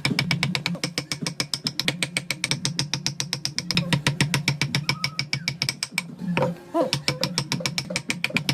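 Power wood-carving tool at work, clicking very rapidly and evenly, about ten strokes a second, over a steady hum. It breaks off briefly about six seconds in.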